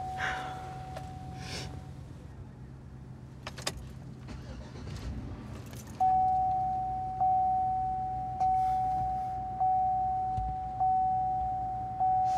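Dashboard warning chime of a GMC truck dinging six times, evenly about once every 1.2 seconds, from about halfway through. Before it, a steady tone at the same pitch fades out, with jingling and rustling and a sharp click.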